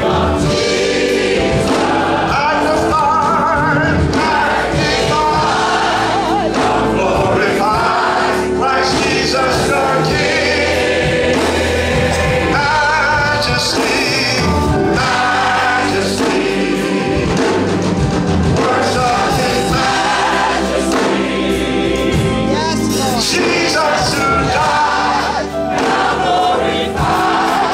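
A church congregation singing a worship song together, many voices at once.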